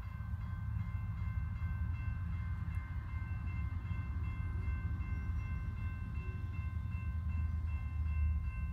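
Distant locomotive air horn holding one long chord of several notes, over a low rumble.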